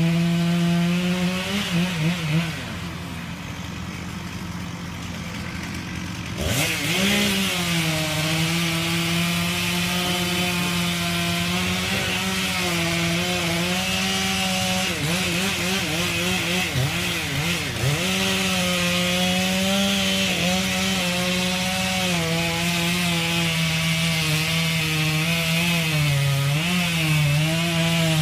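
Chainsaw cutting into a tree trunk. The engine runs at high speed, drops to a lower, quieter running speed for about four seconds, then revs back up sharply and cuts on, its pitch sagging and recovering again and again as the chain bites into the wood.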